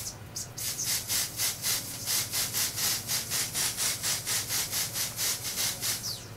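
Aerosol spray-on bronzer can (Bairly Sheer) sprayed in rapid light pulses: a quick, even run of short hisses, about five a second, lasting some five seconds.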